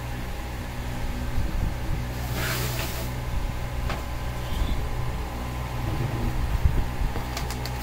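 Steady low background hum, with a brief hiss about two and a half seconds in and a few faint clicks near the end.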